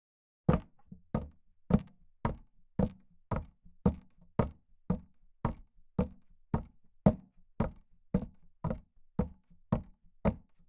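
A steady run of about twenty sharp, low knocks, a little under two a second, each followed by a fainter knock, breaking an otherwise silent track.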